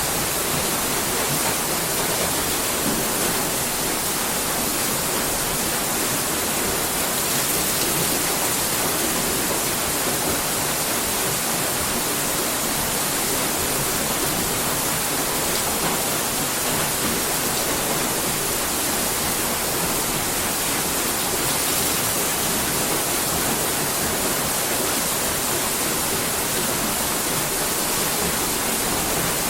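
Water mill wheel turning, with water pouring and splashing steadily off it in an even rushing sound.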